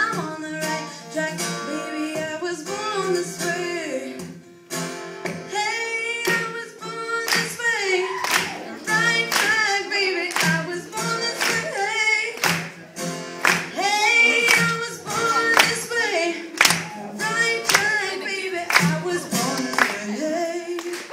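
Live acoustic music: female voices singing over a strummed acoustic guitar.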